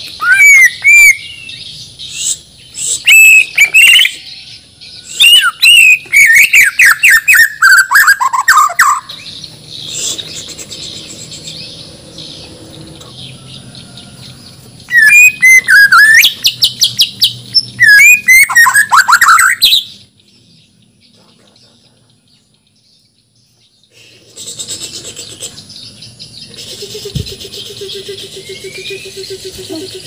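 Caged white-rumped shama (murai batu) of the Bornean form singing loud, varied whistled phrases, with sliding notes and rapid stuttering runs, in three bursts with pauses between. The song stops about twenty seconds in, and only a few faint rising whistles follow near the end.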